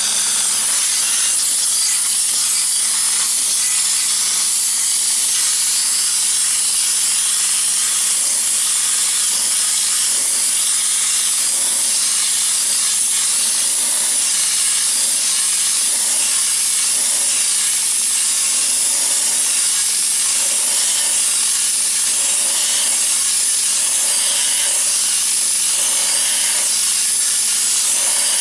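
A 3/8-inch wet sandblast nozzle on a pressure washer, spraying a high-pressure jet of water and sand against a painted steel car fender to strip the paint. It makes a loud, steady hiss with a faint low hum of the pressure washer's motor underneath.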